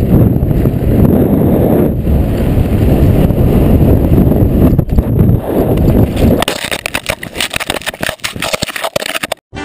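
Loud rushing wind noise on a helmet camera's microphone, mixed with skis running on hard-packed snow, during a fast ski run. About six seconds in it changes to a rapid run of crackling knocks and scrapes as the skier falls and the camera tumbles into the snow.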